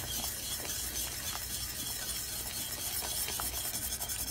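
Wire whisk scraping and rattling against the inside of a stainless steel pot in fast, continuous strokes, whisking brown gravy.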